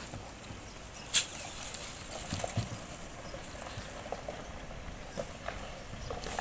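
Scattered small clicks, scrapes and squeaks as a freshly slaughtered goat is held down and cut on banana leaves, with one sharp click about a second in.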